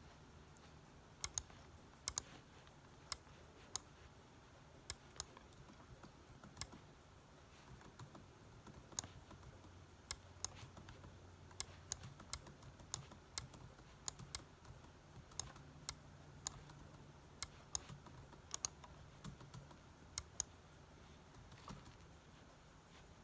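Laptop keys being tapped in irregular, sparse clicks, one or two a second, over a faint low hum.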